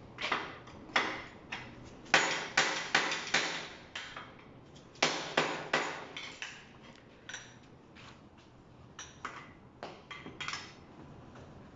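Hammer blows on a metal installation tool, driving a new headset into a mountain-bike frame's head tube: sharp metallic strikes with a short ring, coming in quick runs of several blows, with a few lighter taps near the end.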